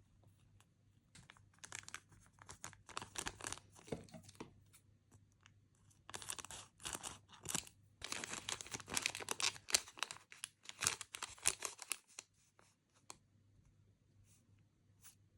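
Sticker packaging being opened by hand: crinkling and tearing in two spells, the second longer and louder, then a few light rustles near the end.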